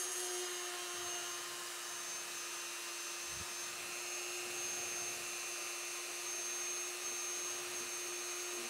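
Dremel rotary tool running at medium speed with a small drill bit, boring a hole into a plastic faceplate: a steady motor whine at an even pitch.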